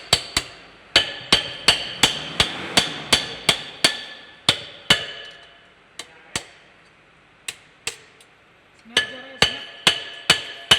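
Hammer striking metal in quick repeated blows, about two to three a second, each with a short metallic ring. In the middle the blows stop for a few seconds, with only a few lighter taps, then start again near the end.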